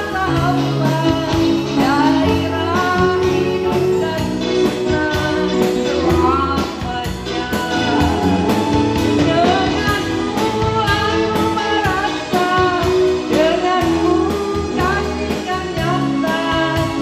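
A woman singing live into a handheld microphone over amplified backing music with a steady bass line, her melody wavering up and down without pause.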